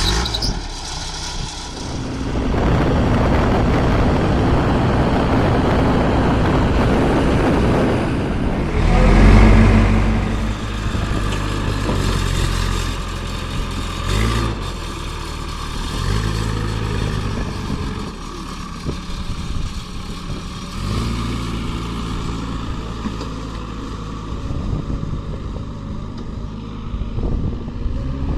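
Backhoe loader's diesel engine working, its speed rising and falling as it digs and lifts, with a loud rev about nine seconds in.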